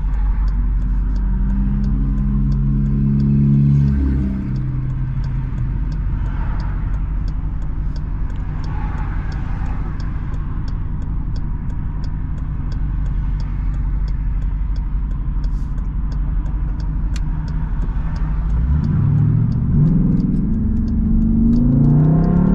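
Straight-piped Jeep Grand Cherokee SRT V8 exhaust heard from inside the cabin. For the first four seconds it pulls under throttle, then it drops back to a low, steady drone while cruising. From about three-quarters of the way in it revs up again, rising in pitch and getting louder.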